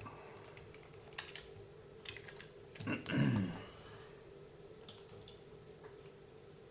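Scattered light clicks and taps of small parts being handled as an RC car's differential is put back together, over a faint steady hum.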